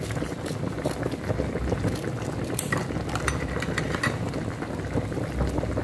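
Chicken pieces boiling in coconut-milk broth in a large wok: steady bubbling with many small pops, over a low rumble.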